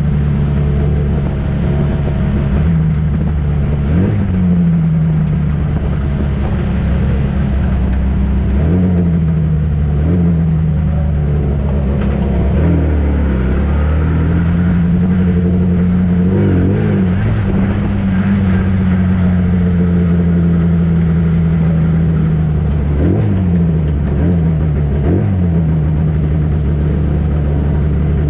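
Huffaker Genie Mk13 1960s prototype racing car's engine running hard at speed. Its note climbs and drops back several times, as with gear changes and lifting for corners, with a long steady pull in the middle.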